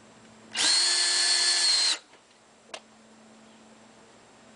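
Cordless drill/driver spinning a screw in a trailer's sheet-metal skin for about a second and a half: a steady motor whine that rises briefly as it spins up and stops suddenly. A single sharp click follows about a second later.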